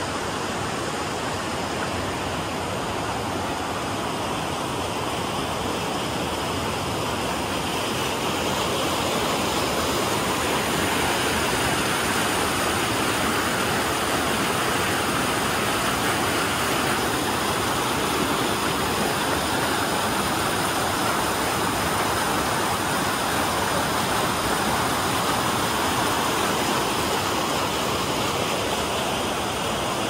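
Rushing mountain water: a steady, even rush that gets a little louder about ten seconds in.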